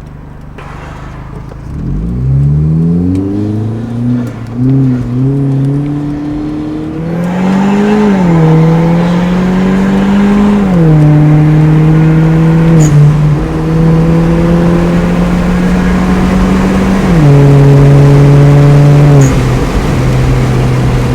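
Hyundai Genesis Coupe 2.0-litre turbo engine with a custom exhaust, accelerating on a test drive. The engine note climbs, then falls back sharply several times, at about 8, 11, 17 and 19 seconds, between steady stretches. The engine pulls strongly with no hesitation on its newly replaced fuel pump.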